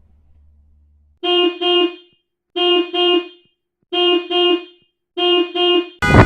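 A horn-like tone on one pitch sounding in four evenly spaced pairs of short toots, about one pair every 1.3 seconds, with dead silence between them.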